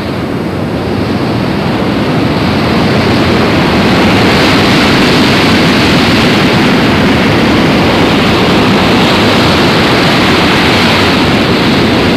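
Sea surf and wind: a steady rushing noise that swells over the first few seconds and then holds.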